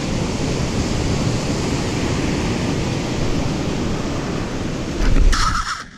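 Steady rushing of surf and wind, with wind buffeting the microphone. A loud, brief rustling burst comes about five seconds in.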